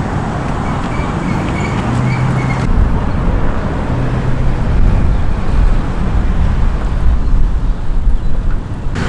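Steady traffic and road noise with a heavy low rumble, heard from a bicycle riding along a city avenue, with cars passing.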